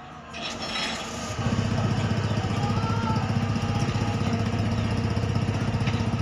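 An engine sets in loudly about a second and a half in and runs steadily at idle with a fast, even throb.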